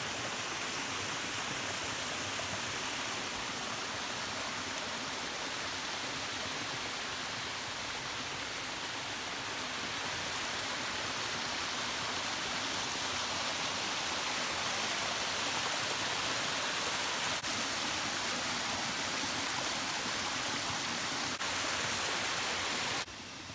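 Small forest creek cascading over rocks, a steady rush of tumbling water that drops away abruptly just before the end.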